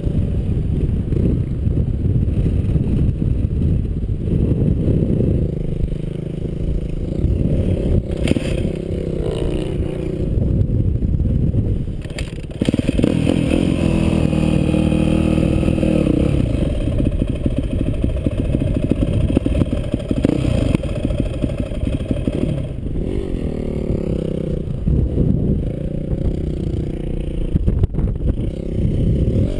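Yamaha dirt bike's engine running under load as it rides through sand, its revs rising and falling, heard from a helmet-mounted camera with wind buffeting on the microphone.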